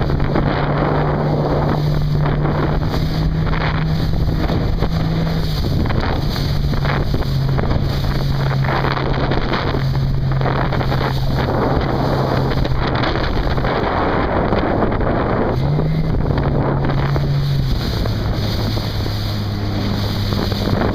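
Strong wind buffeting the microphone over rushing water, with a steady low hum underneath that shifts up or down in pitch a few times.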